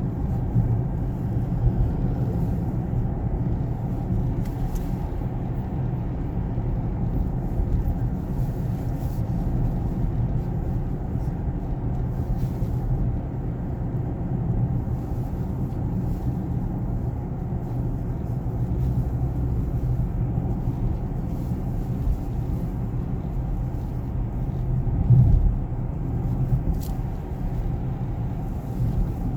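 Steady road and drivetrain rumble inside a moving Range Rover Velar's cabin, with a few faint, scattered clicks from the door, the clicking fault being chased, and one brief low bump near the end.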